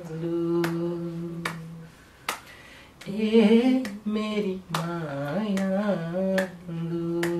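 Nepali song with a long-held, ornamented sung melody over a sparse beat of sharp clicks, a little under a second apart.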